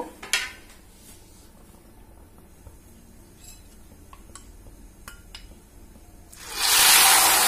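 A few faint clicks, then about six and a half seconds in a sudden loud, steady sizzle as ghevar batter is poured from a ladle into very hot ghee inside a ring mould and fries into froth.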